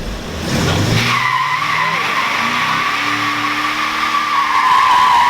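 Car tires spinning in a burnout: the engine revs up, then about a second in the tires break into a loud, steady squeal over the running engine.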